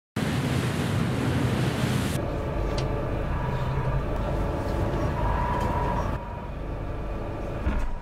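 Wind and sea noise on open water. After about two seconds it gives way to the steady hum of a warship's machinery, carrying faint fixed whining tones, which eases slightly near the end.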